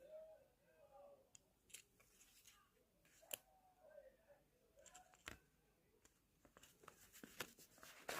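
Near silence with a scattering of faint, sharp clicks that come more often near the end.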